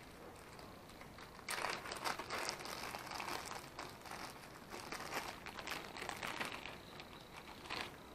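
Crinkling and rustling handling noise with many small clicks, starting about a second and a half in.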